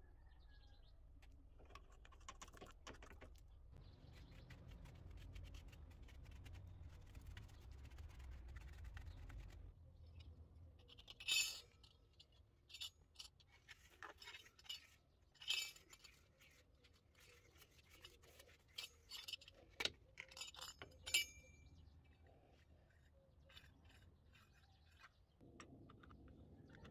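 Chrome tap fittings and metal hand tools clinking and clicking as they are handled and fitted, a string of sharp metallic clicks bunched in the middle, over a faint low hum in the first half.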